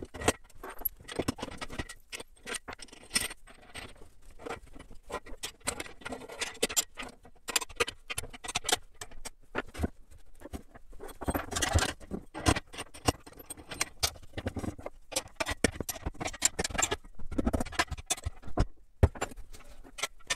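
Steel parts of a motorcycle frame jig being fitted together by hand: clamp plates, bolts and square steel tubing clinking, knocking and scraping at irregular moments, with a few louder clusters of knocks near the middle and later on.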